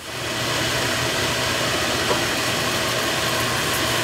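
Kitchen range hood fan running steadily, a low hum under an even hiss.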